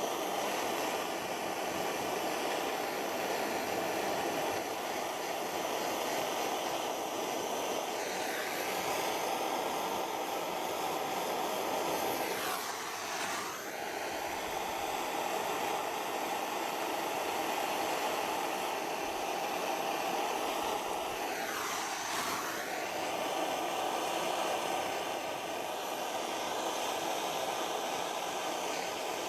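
Gas blow lamp burning with a steady rushing hiss as it heats a brass exhaust assembly to flow silver solder rings. Its tone sweeps down and back up briefly three times as the flame is moved.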